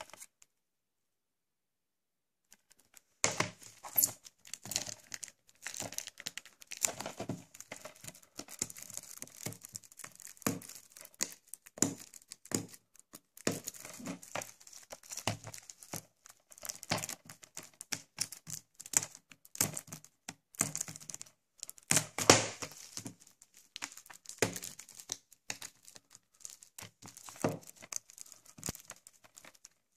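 Clear plastic shrink-wrap being torn and peeled off a DVD case by hand, crinkling and crackling irregularly from about three seconds in, with louder crackles now and then.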